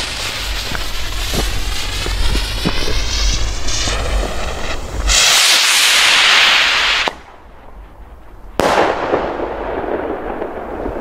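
Weco Red Hawk firework rocket hissing and sputtering for about five seconds as it ignites. A louder rushing hiss follows as it launches and cuts off about seven seconds in. About a second and a half later a sudden bang comes as it bursts in the sky, followed by a fading hiss.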